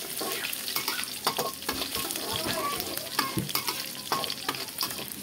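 Chopped onion sizzling in hot oil in a wok, stirred with a metal spatula that scrapes and clicks against the pan again and again.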